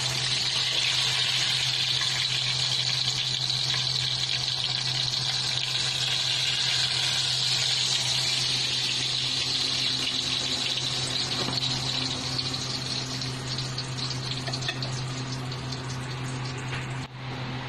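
Hot oil sizzling steadily in a wok as tilapia deep-fries, over a low steady hum. The sizzle eases a little in the second half.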